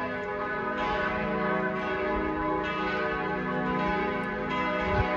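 Church bells ringing, several bells struck in turn with their tones ringing on and overlapping.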